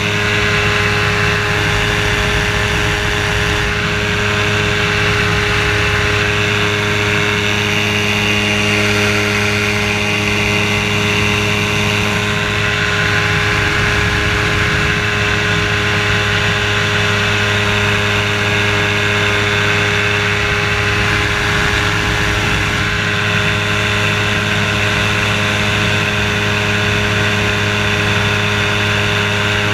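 Engine and propeller of an ultralight float trike (motorized hang glider) running steadily in cruising flight, an even drone with a constant rush of air.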